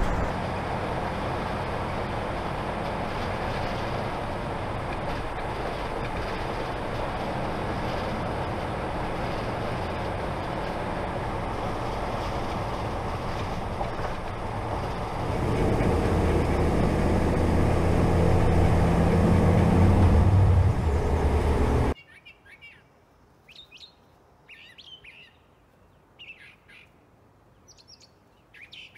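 Steady road and engine noise of a Class C motorhome driving on a highway, rising about halfway through to a louder, steady engine hum. After about twenty seconds it cuts off suddenly to quiet, with birds chirping in short calls.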